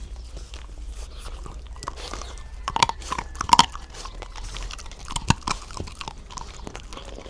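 A puppy crunching and chewing hard treats: a string of irregular crunches, the loudest bites coming about three seconds in and again a little after five seconds.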